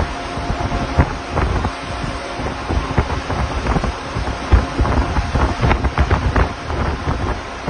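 Strong wind buffeting the microphone in irregular gusts and thumps, over the rush of waves.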